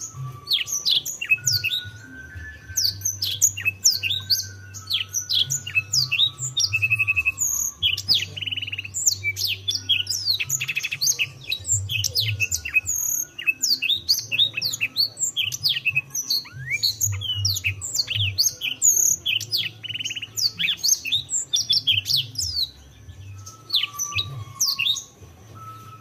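Canary singing a long, fast song of chirps and sweeping notes broken by rolling trills, with brief pauses.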